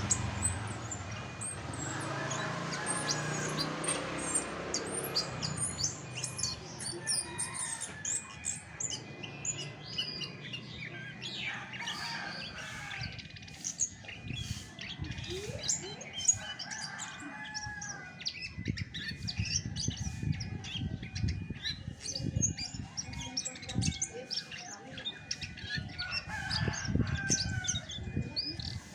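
Chestnut-backed thrush (anis macan) singing a long, dense run of rapid, varied chirping notes. There is a low rumble in the first few seconds and scattered low thumps later on.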